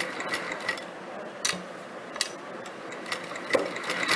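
Sewing machine being handled and set up: a few sharp clicks and light mechanical ticking as the stitch-length regulator is set to 5 and the fabric is placed under the presser foot. The machine begins to stitch right at the end.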